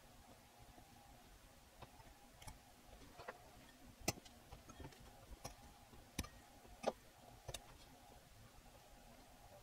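Faint, irregular clicks and taps, about nine in all, from fingers and a small metal tool pressing and bending over the leads of output transistors on an amplifier circuit board, over a faint steady hum.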